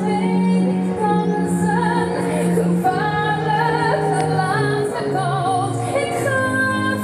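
Music: a song with a woman singing a wavering melody over held low notes.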